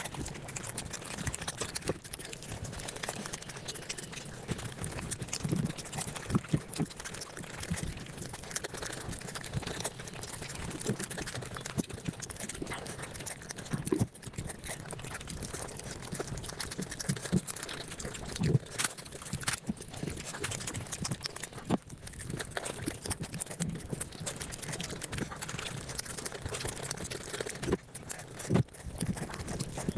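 Close-up eating sounds sped up five times: a dense, rapid run of chewing and mouth clicks.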